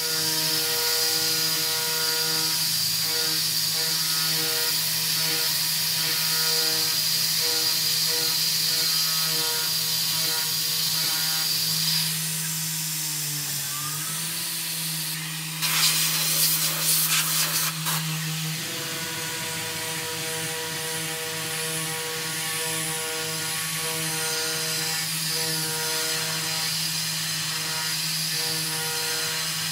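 Tormach 440 CNC mill's spindle running with a steady whine as a small end mill cuts aluminium, with a high cutting hiss. About twelve seconds in the cutting noise drops away as the tool lifts clear, a loud burst of sharp crackling follows a few seconds later, and then steady cutting resumes.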